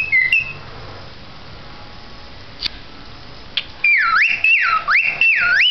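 Cockatiel whistling: a couple of short high notes at the start, then after a pause a run of three swooping whistles near the end, each dipping in pitch and sweeping back up.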